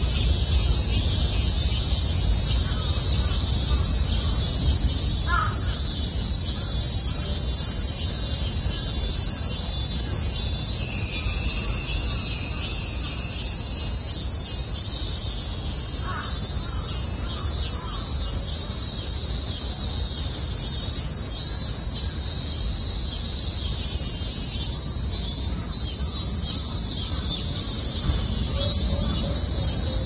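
Cicadas singing in a dense chorus, a steady high shrill, with a pulsing call from another cicada coming in and out. A crow caws briefly twice, about five seconds in and again near the middle, over a low steady rumble.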